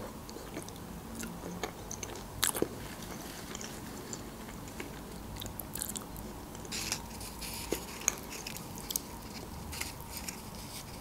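Close-miked chewing of soft avocado, with wet mouth smacks and scattered small clicks. Near the end there are light scrapes of a metal fork scooping flesh from an avocado half.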